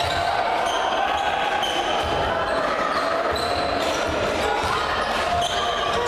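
Basketball dribbled on a hardwood court during play, with thuds every so often and sneakers squeaking.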